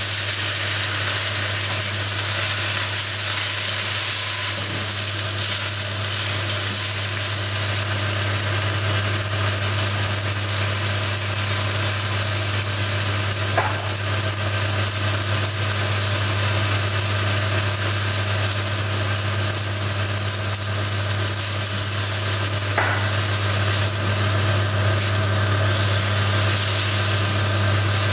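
A steady low machine hum under a constant hiss, with two faint clicks, one about halfway through and one later on.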